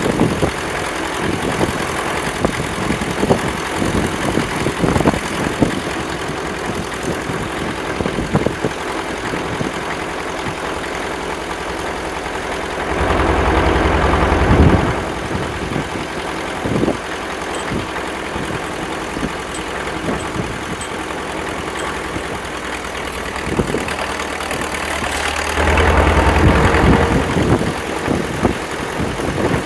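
Engine running steadily at idle with some knocking, getting louder for a couple of seconds about halfway through and again near the end.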